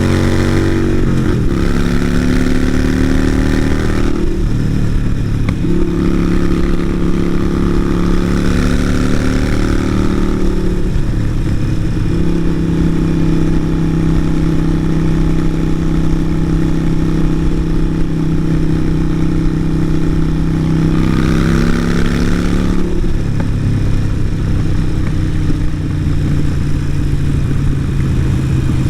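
Harley-Davidson Sportster 883 Iron's air-cooled V-twin running on the road through a Vance & Hines exhaust. The engine note falls in the first second or so, then changes pitch in steps several times as revs change, with steady cruising stretches between.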